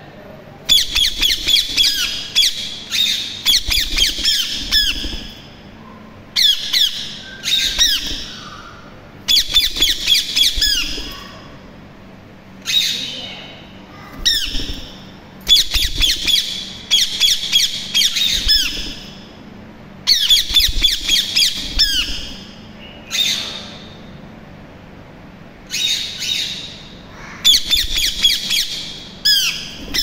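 Indian ringneck parakeets squawking: bouts of rapid, harsh, high-pitched calls, each a second to a few seconds long, repeated every few seconds.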